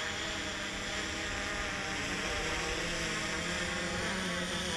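FIMI X8 SE 2020 quadcopter drone's motors and propellers humming steadily in flight, the pitch wavering slightly, over a steady hiss.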